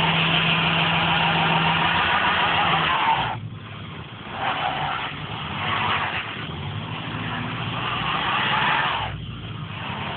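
Heavy lorry's diesel engine under hard throttle, its drive wheels spinning on snow with a loud hiss: the lorry has lost traction on the slope. The sound drops off sharply about three seconds in, then picks up again in uneven surges.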